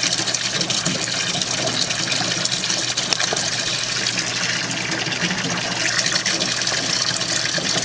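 A small external 45-watt recirculating water pump running steadily with a low hum, while water gushes through its hoses back into the cooler reservoir.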